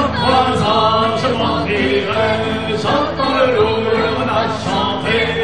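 A group of voices, a woman's among them, singing a French-language Breton folk song live, with acoustic guitar accompaniment.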